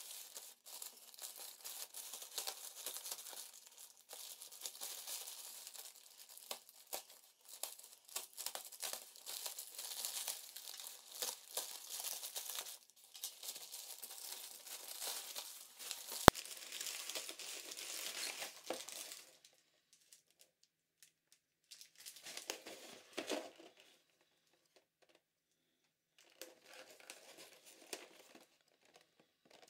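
Plastic parcel wrapping, clear film and a thin plastic bag, crinkling and tearing as it is pulled off by hand: a dense run of crackles with one sharp click a little past halfway, then mostly quiet apart from two shorter rustles near the end.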